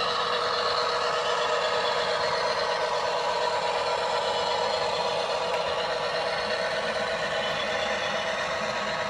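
Model railway locomotive running with sound fitted: a steady diesel-engine sound played through a small speaker, with nothing in the bass.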